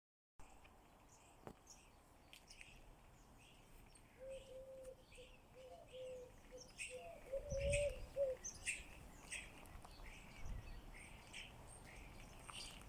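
Birds chirping repeatedly with short high calls. From about four seconds in a lower, slightly wavering tone sounds for about four seconds, with a few soft thumps near its end.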